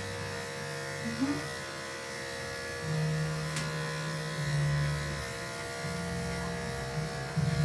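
Electric dog grooming clippers running with a steady hum as they clip a dog's coat.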